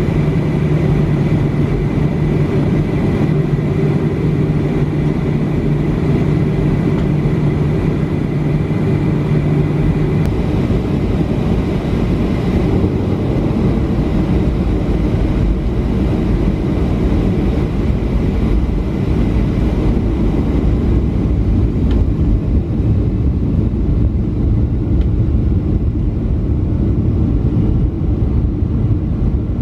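Cabin noise of a Boeing 737-500 taxiing, its CFM56 engines running at low taxi power: a steady, even noise strongest in the low range. A low hum drops out about ten seconds in.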